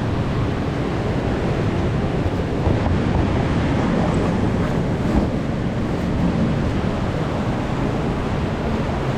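Steady rush of a small desert creek waterfall pouring over rock close by.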